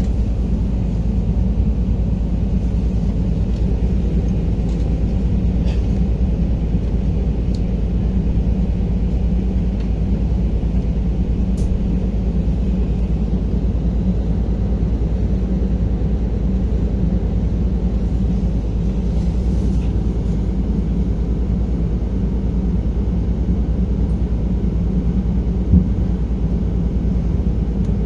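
Steady low rumble and hum of buses standing in traffic, heard from inside a bus.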